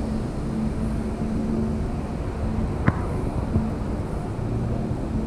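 Steady city street traffic rumble, with a single sharp click from a Canon T6 DSLR's shutter about three seconds in and a softer knock just after it.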